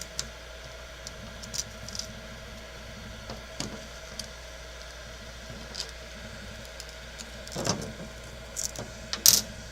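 Scattered light clicks and scrapes of the old lens glass being picked and pried out of a GoPro Hero+ front, with a sharper click near the end, over a steady low hum.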